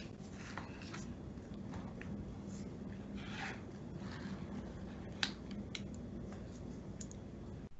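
Faint steady low hum with light scratching and rubbing handling noises and a few small clicks, one sharper click about five seconds in.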